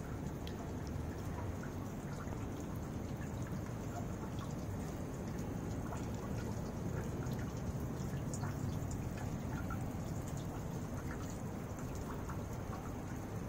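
Water from a small stone fountain trickling and dripping into a fish pond, with many small scattered drips and splashes over a steady low wash.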